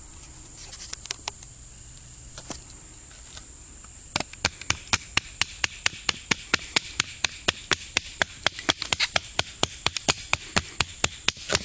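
A fast, even series of sharp knocks, about four a second, starting about four seconds in after a few scattered knocks, over a steady high insect drone.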